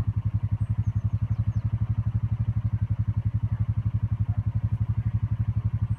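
A small engine idling steadily, a regular low throb of about ten beats a second.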